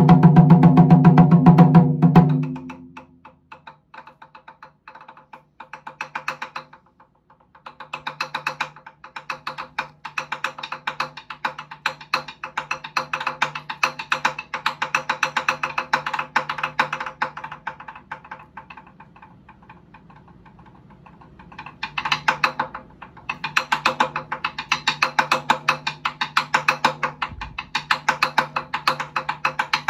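Taiko drums struck with wooden sticks: about two seconds of loud, deep strokes on the barrel-shaped nagado-daiko, then a long run of fast, lighter and higher-sounding strokes that drop to soft around the middle and build back up over the last eight seconds.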